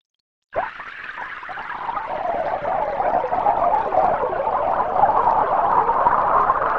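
Computer-synthesized sound of water pouring into a glass tank, built from simulated bubble oscillations with a frequency extension added to the model. It starts suddenly about half a second in and grows louder over the next few seconds.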